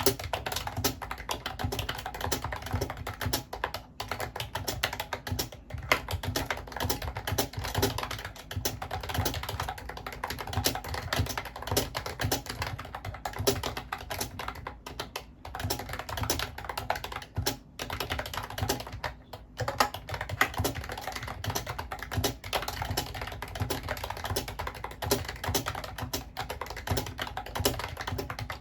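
Continuous, fast typing on a Mofii Candy wireless keyboard: a dense run of key clicks with a few brief pauses.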